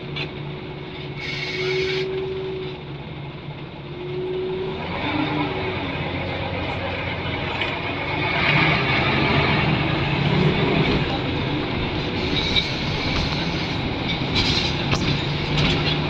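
Scania L94UB Wright Solar bus running under way, heard from inside the passenger saloon, with a steady whirring tone over the drivetrain noise. The running noise grows louder about five seconds in and again around eight seconds.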